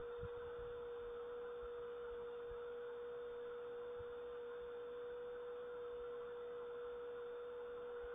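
A steady, even hum on one pure pitch, unchanging throughout, over faint background hiss, with a couple of faint low knocks.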